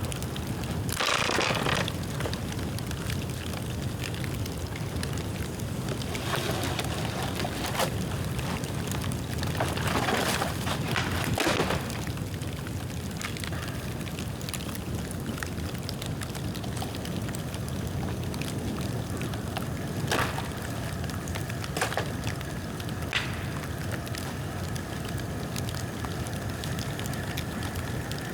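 Bonfire of dead bamboo burning with a steady rush, broken by scattered crackles and a few sharp pops.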